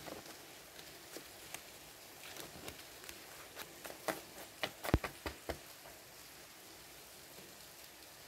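Hands handling a stack of Digimon trading cards: scattered soft flicks and taps of card against card and on a wooden table. A run of sharper taps comes about halfway through, as the stack is squared.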